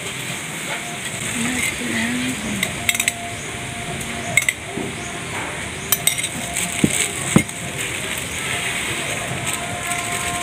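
Metal spoon clinking and scraping against a small bowl several times as seasoning is scraped out onto rice, over a steady background hiss.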